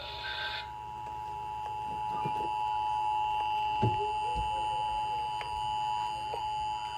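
Emergency Alert System attention signal: the steady two-tone chord (853 and 960 Hz), received over FM radio. It starts under a second in, right after a short burst of data noise ends.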